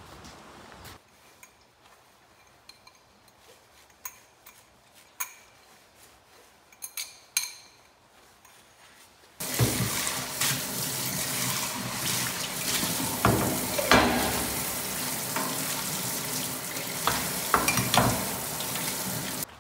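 A few scattered clinks of dishes. About halfway in, a tap opens and hot water runs hard into a stainless steel sink while a bowl, cutting board and cutlery are rinsed under it, with knocks and clatters of dishes against the steel.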